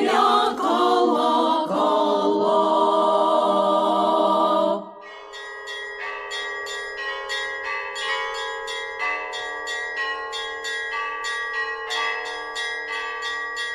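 A women's vocal ensemble holds and ends the final chord, cutting off about five seconds in. Church bells then ring in a quick, uneven peal of many strikes, their tones overlapping and ringing on.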